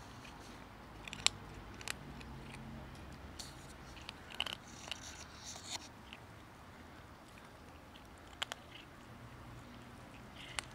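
A kitten eating dry kibble from a plastic tray: irregular sharp crunches, a few seconds apart, among quieter chewing.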